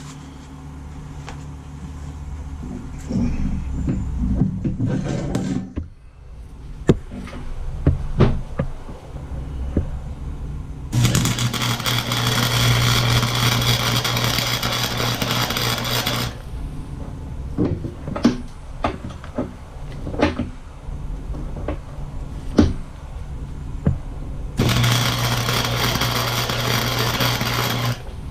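Flux-core arc welding with a Chicago Electric 125 amp welder: two runs of steady arc crackle and sizzle over a low hum, the first about five seconds long starting about eleven seconds in, the second about three and a half seconds near the end, laying a big bead around the end of a steel rebar. Between the runs come scattered sharp clicks and knocks.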